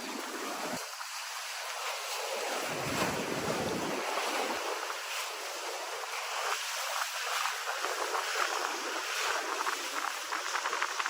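Steady rain falling, a dense hiss with fine patter of drops, with low gusts of wind on the microphone in the first few seconds.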